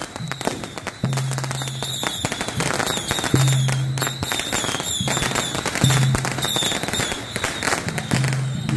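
Strings of firecrackers crackling in a dense, continuous rattle, with procession music beneath it: a low held note that sounds for about a second at a time, several times over.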